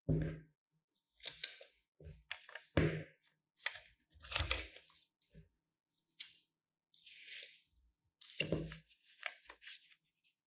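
Steel scissors snipping stiff green marbled paper, with the cut pieces handled and dropped onto a pile on a wooden table: an irregular series of short, crisp cuts and papery rustles with gaps between them.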